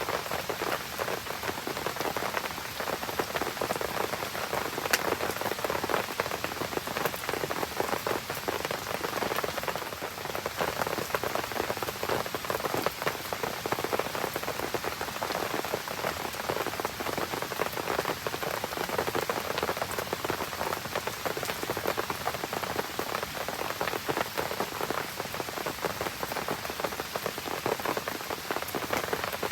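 Steady rain pattering onto surfaces, with a campfire burning amid it, giving many small sharp ticks and pops; one sharper pop about five seconds in.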